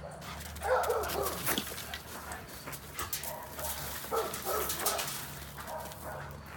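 A dog barking and yipping in short bursts during a play chase between a German shepherd and a Scottish deerhound, the loudest burst about a second in and more following every second or so.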